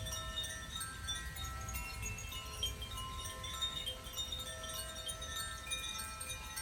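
Tuned meditation wind chimes played by hand, ringing with many clear overlapping notes that start and fade one after another, over a faint low rumble.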